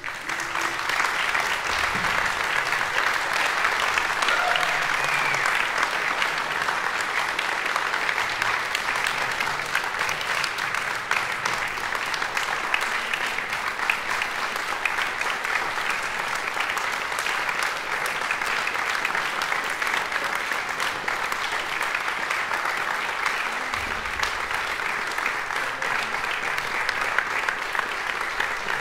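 Audience applauding: dense, steady clapping that swells quickly in the first second and then holds.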